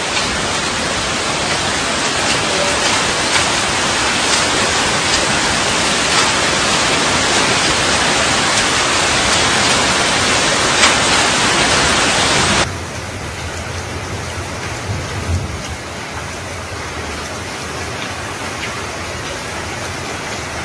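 Heavy rain and floodwater rushing through a city street: a loud, steady hiss. About two-thirds of the way through it cuts abruptly to a quieter recording of rushing floodwater.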